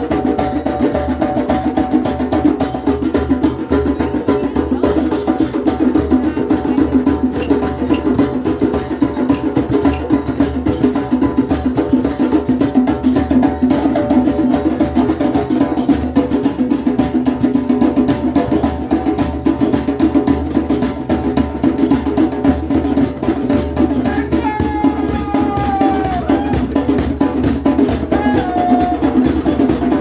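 Street percussion band drumming a fast, steady groove on a hand drum together with steel pots, pans and plate-like cymbals struck with sticks. A brief falling tone sounds over it about 24 seconds in.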